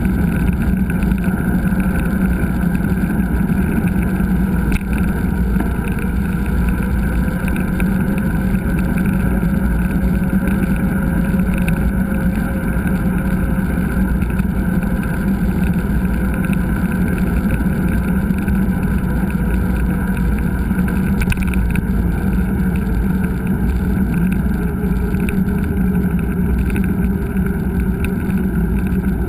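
Steady, loud rumble of a mountain bike ride picked up by a GoPro: wind and tyre noise on the trail, unbroken throughout.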